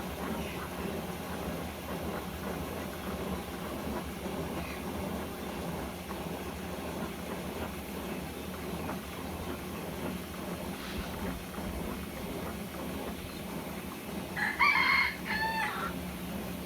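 Steady running of an Electrolux LF75 top-loading washing machine on its spin cycle, with a rooster crowing once, loudly, near the end.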